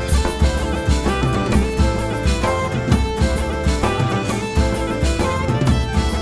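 Background music: a band track with a steady drum-kit beat, bass drum and plucked guitar over held notes.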